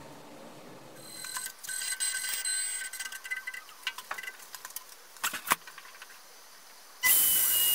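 CNC router at work: small mechanical whines at steady high pitches, with scattered clicks and knocks. About seven seconds in, the spindle starts with a sudden, loud, steady hiss and high whine.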